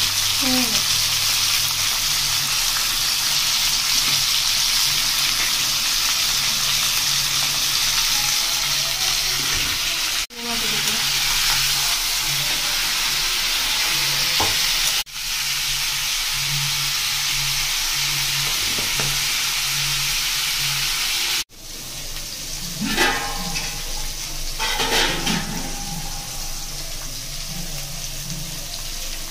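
Cauliflower, potato and carrot pieces sizzling steadily as they fry in oil in a kadai. The sizzle breaks off sharply three times. It is quieter and more uneven near the end.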